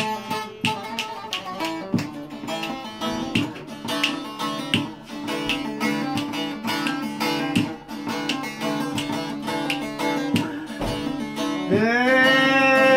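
Bağlama (Turkish long-necked saz) being played, a fast run of plucked notes over a steady drone of open strings. Near the end a person's voice joins with one long cry that rises and falls.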